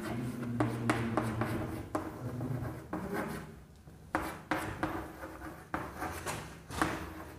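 Chalk writing on a chalkboard: irregular scratches and taps of the chalk as a word is written out, with a brief pause about three seconds in.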